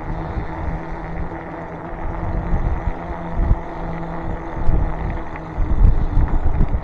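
Strong gusty wind buffeting the microphone, rumbling louder in the second half, over a steady low hum.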